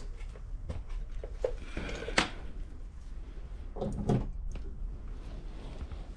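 Scattered clunks and knocks of equipment being handled, with a sharp knock about two seconds in and a short clatter around four seconds; no compressor is running yet.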